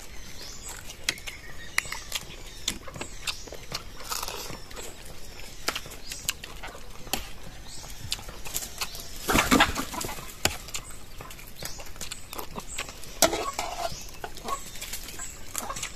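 Eating sounds at close range: cooked shellfish shells cracked and peeled by hand, with scattered sharp clicks and a louder burst of crunching and handling about nine seconds in.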